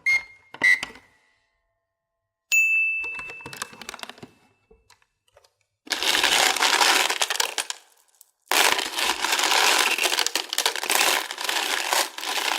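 Hard candies clicking and clinking against a container: a few sharp clicks, then a ringing clink about two and a half seconds in. Two long stretches of dense crackling rattle follow as the candies are stirred and tumbled.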